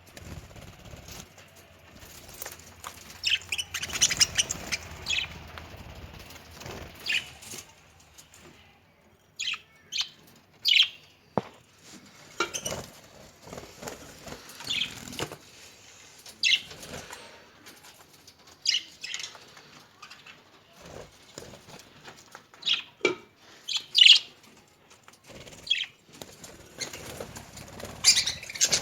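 Budgerigars in a cage giving many short, high chirps at irregular intervals, with bursts of wing fluttering and rustling in between.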